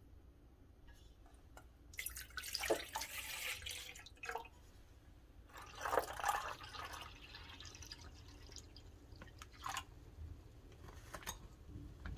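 Water pouring or running in two short stretches, with a few light knocks and clinks between them.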